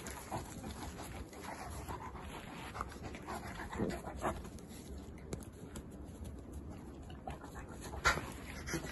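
An adult dog and a puppy play-wrestling: panting and short whimpering sounds scattered through, with a sharp knock about eight seconds in.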